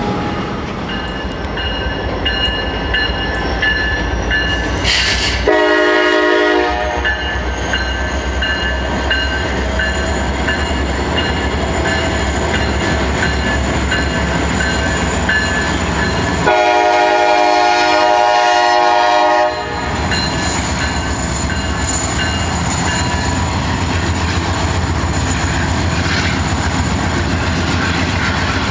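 Freight train running by with a steady rumble and rail noise, its diesel locomotive's air horn sounding a short blast about five seconds in and a longer blast of about three seconds later on.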